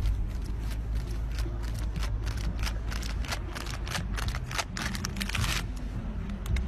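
Steady low rumble of wind on the microphone, with a fast run of clicks and rattles from about a second and a half in until about five and a half seconds in.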